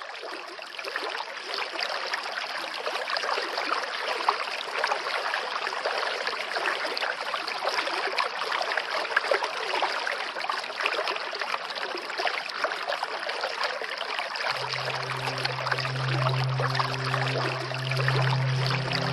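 Steady rush of running water with fine splashing and crackle, fading in at the start. A low sustained musical tone comes in underneath about three quarters of the way through.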